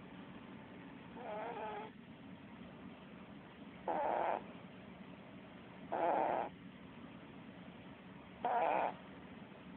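Sleeping cat snoring: a fainter, wheezy snore about a second in, then three louder short snores about two seconds apart, over a steady low hum.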